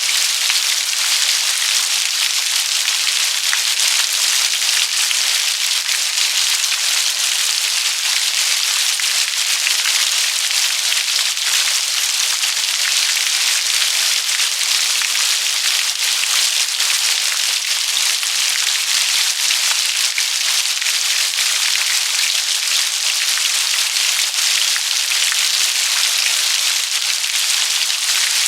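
Steady rain: a dense, even patter of many raindrops, mostly high in pitch, with no let-up or change in strength.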